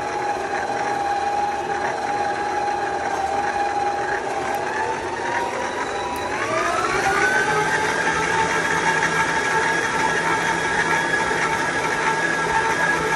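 Electric stand mixer motor running with its dough hook kneading bread dough, a steady whine over the churning. About halfway through, the whine rises in pitch and gets a little louder, then holds steady.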